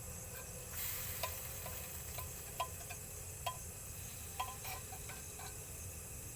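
Metal spoon clinking and tapping against a cooking pan at irregular intervals while sardines are stirred and fried, with a short burst of sizzling about a second in.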